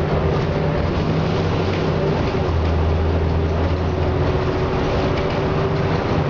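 Inside a city transit bus under way: a steady engine and drivetrain drone mixed with road noise, its low hum growing stronger for a couple of seconds near the middle.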